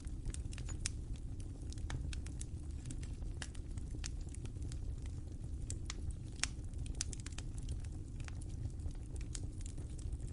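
Wood fire crackling: a steady low rumble of burning with frequent irregular sharp pops and snaps.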